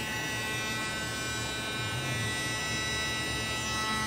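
Oright 12 V mini drill's small DC motor running steadily at high speed on an external power supply with its controller board bypassed, giving an even high-pitched whine with a low hum beneath.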